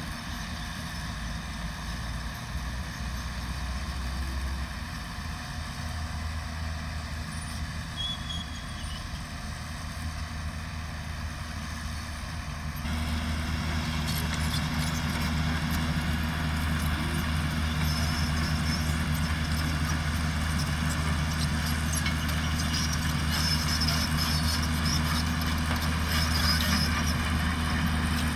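Heavy construction machine's diesel engine running steadily with a low hum. About halfway through, the sound turns abruptly louder and stays that way.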